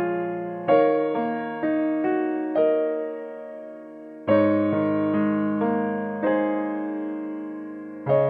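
Background music: a slow, gentle piano tune. The notes are struck one after another and ring out and fade, with a new phrase beginning about halfway through.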